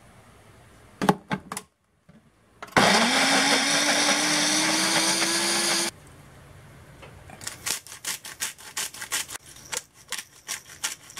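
Food processor motor switching on about three seconds in, its pitch rising as it spins up through the potato chunks, then cutting off after about three seconds. Afterwards come rapid rattling clicks of a salt shaker and pepper grinder seasoning the potato.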